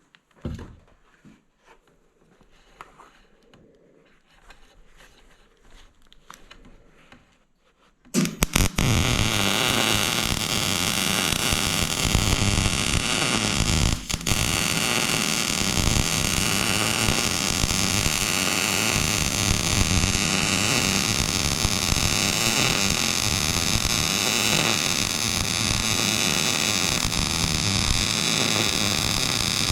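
Faint handling sounds, then a MIG welder starts about eight seconds in and runs a long bead, a loud, steady crackling hiss with a brief break about 14 seconds in.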